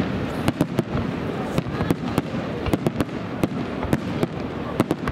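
Starmine fireworks barrage: shells bursting in quick, irregular succession, sharp bangs a few times a second over a steady rush of noise.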